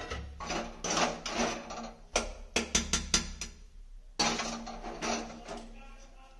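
A steel spoon scraping and knocking against a steel kadhai and bowl as cooked greens are scooped out. A run of quick, sharp metal clinks comes about two to three seconds in.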